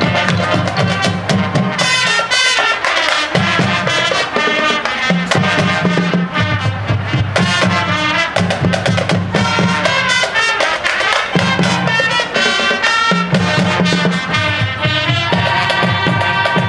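High school marching band playing: brass and drumline together, with many sharp drum hits over the sustained brass.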